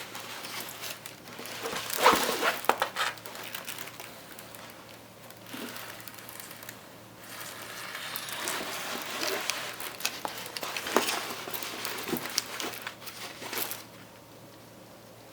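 Plastic cover film and diamond painting canvas being handled, rustling and crinkling, with a few sharp crackles about two seconds in and again near eleven seconds.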